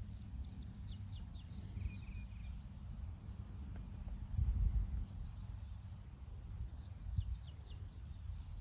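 Wind rumbling on a phone microphone in open pasture, with a stronger gust about four and a half seconds in, over a faint steady high insect drone and a few faint high chirps.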